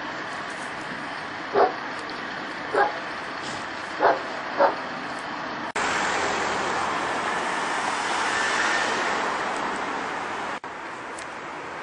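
A dog barking four short single barks in the first six seconds. Then a steady rush of street traffic noise that swells and fades about eight to nine seconds in.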